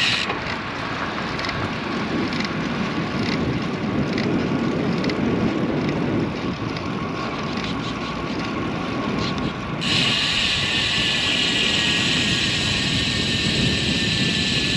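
Wind rushing over the microphone while riding a road bike, mixed with tyre noise on a concrete road, as a steady roar. A brighter hiss comes in about ten seconds in.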